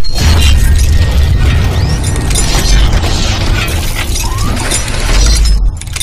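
Intro-animation sound effect: a sudden loud blast of shattering and crashing over a deep rumble, dropping away just before the end.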